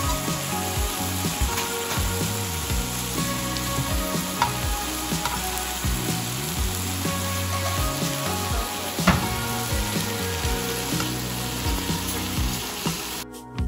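Beef slices sizzling steadily on a hot tabletop grill pan, with a couple of sharp clicks of metal tongs against the pan. Soft background music plays underneath, and the sizzling cuts off near the end.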